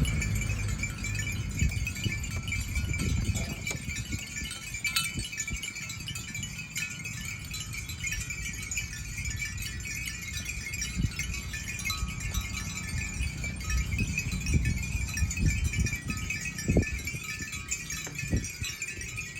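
Cow bells jingling and clanking irregularly, with a low rumble and occasional thumps underneath.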